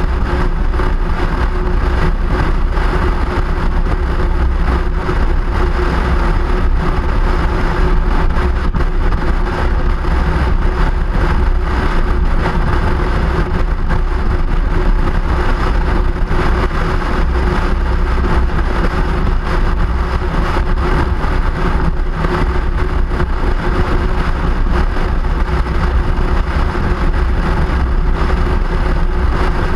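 Steady road-vehicle noise while on the move: a constant deep rumble with a steady hum, unchanging throughout.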